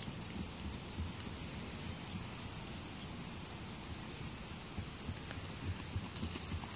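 A steady chorus of summer insects, a high continuous buzz made of rapid even pulses, with soft low thumps underneath from a young horse's hooves cantering on grass turf.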